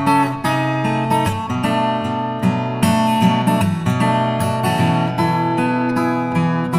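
Acoustic guitar music: a steady run of plucked notes and strummed chords.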